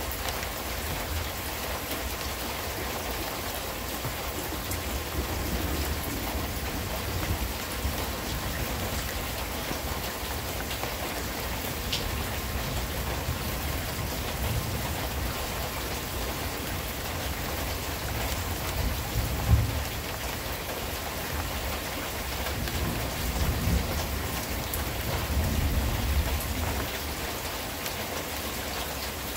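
Steady rain falling throughout, with low rumbles of thunder swelling about two-thirds of the way through and again near the end.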